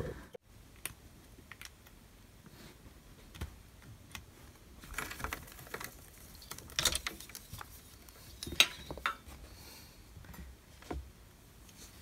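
Faint, scattered clicks and light plastic rattles from handling a clear acrylic tarantula enclosure and its removable divider, with a few louder clusters in the second half.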